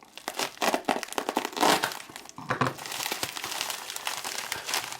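Packaging being handled and unwrapped, with a steady irregular crinkling and rustling.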